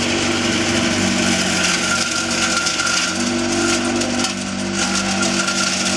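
Motor-driven chopper-grinder machine running and shredding leafy branches as they are fed into its hopper, a steady machine hum over a dense chopping rattle. Its running note shifts down and up a couple of times as the branches load the blades.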